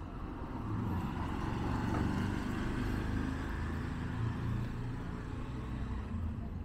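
Low, steady rumble of motor-vehicle traffic, swelling a little about a second in and then settling.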